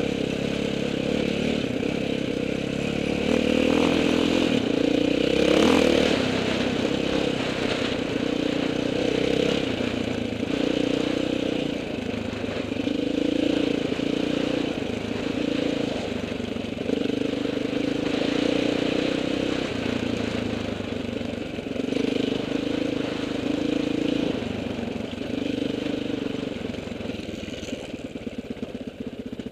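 Off-road trail motorcycle engine running under way, its revs rising and falling with the throttle. Near the end the rider eases off and the engine sound drops and flutters.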